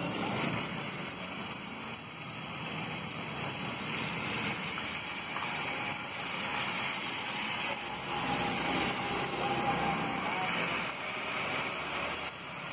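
Chopped tomatoes, capsicum, peas and boiled potato sizzling on a hot oiled flat iron griddle (tawa), a steady hiss over a constant background din.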